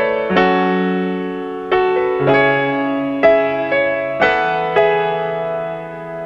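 Background piano music: slow notes and chords, each struck and left to ring and fade, dying away near the end.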